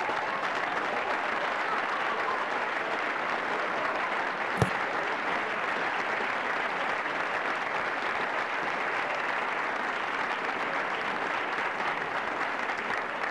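Steady applause from spectators, with a single sharp knock about four and a half seconds in.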